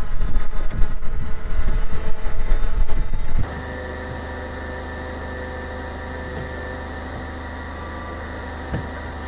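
Caterpillar forklift engine running while it is driven outdoors, with heavy wind buffeting on the microphone. About three and a half seconds in, this cuts off abruptly and a steady idling hum follows.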